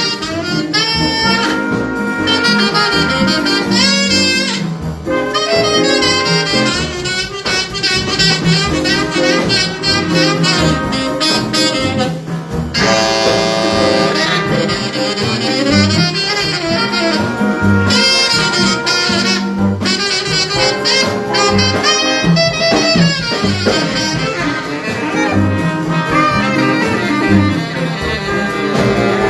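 High school jazz ensemble playing live: saxophones and brass together over a rhythm section.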